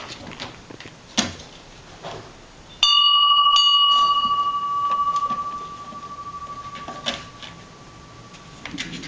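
A small metal bell rung by a pet: struck about three seconds in and again a moment later, then ringing on with one steady tone that slowly fades over about five seconds. Light taps come before and after.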